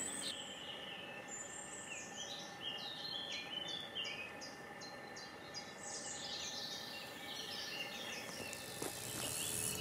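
Small birds singing and chirping over quiet outdoor ambience, with a run of quick repeated notes in the middle.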